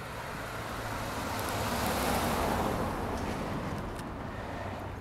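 A sedan driving past on a residential street, its tyre and engine noise swelling as it approaches, loudest about two seconds in, then fading away.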